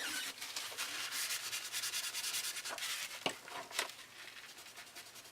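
Rapid back-and-forth rubbing on a paper planner page, working at a stray mark to remove it; the strokes are densest for the first three seconds, then thin out to a few faint rubs and light ticks.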